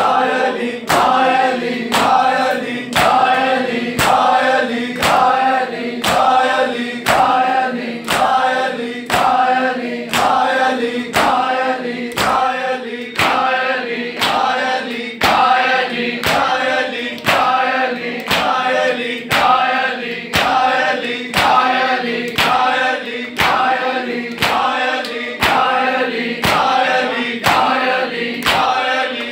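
Matam (sineh-zani): a group of men chanting a noha in unison while striking their bare chests with open palms together, about once a second. The slaps land in a steady beat under the sustained chant.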